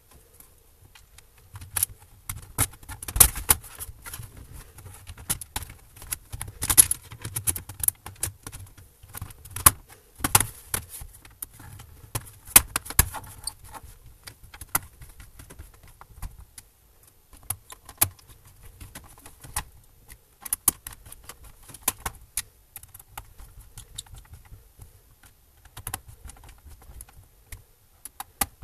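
Irregular clicks, taps and light rattles of a laptop's plastic and metal parts being handled. The loudest knocks fall in the first half.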